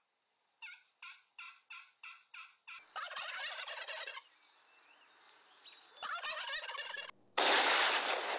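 Turkey calls: an even series of about seven yelps, then two rattling gobbles. Near the end comes a sudden, much louder burst of noise that rings on and fades.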